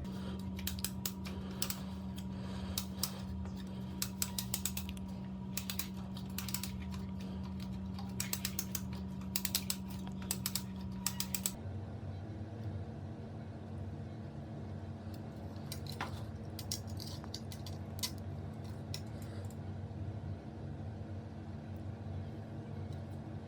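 Clusters of light clicks and taps over a steady electrical hum; the hum shifts slightly higher about halfway through, and the clicks thin out in the second half.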